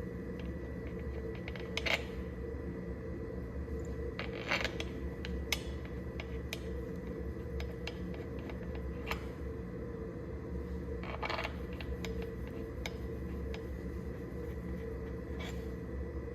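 A steady machine hum holding one high tone, with a few short metallic clinks and scrapes scattered through it.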